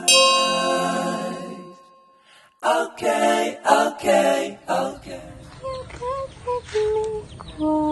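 Intro music with singing. A bell-like chime is struck at the start and rings out over about two seconds, the music comes back after a short gap, and from about five seconds in short bird calls sound over a low hum.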